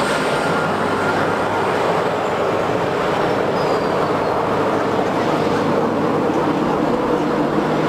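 Airbus A320's CFM56 turbofan engines running at low taxi thrust as the airliner rolls slowly along the taxiway: a steady jet engine noise with no change in level.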